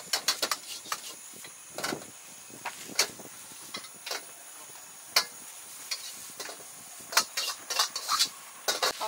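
Metal ladle clanking and scraping against a wok as egg fried rice is stir-fried and tossed, in irregular strikes with quick runs of clanks near the start and again near the end, over a steady hiss from the gas flame and the frying.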